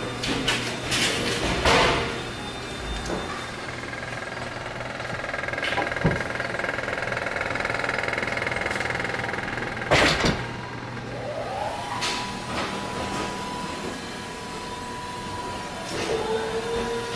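Polyester shirts rustling and swishing as they are lifted and turned over in a pile, with louder swishes about a second, two seconds and ten seconds in. Under it runs a steady low machine hum, and a steady whine comes in after a short rising pitch about eleven seconds in.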